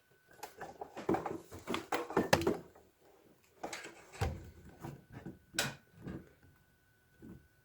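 Handling clatter: a run of knocks, clicks and rustles in two spells, with one sharp click about five and a half seconds in.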